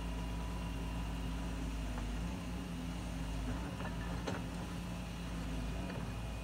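Excavator's diesel engine running at a steady low hum, with a few light knocks about two to four seconds in.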